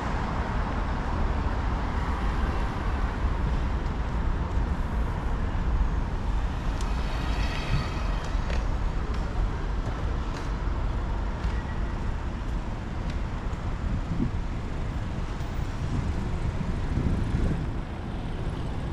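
Steady rumble of city traffic, with a brief high-pitched squeal about seven to eight seconds in.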